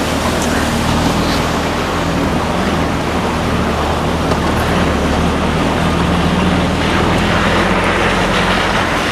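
Austin Champ 4x4's engine running steadily under load, heard from inside the cab, with a constant rushing wash of water and mud as it drives through a flooded, muddy track.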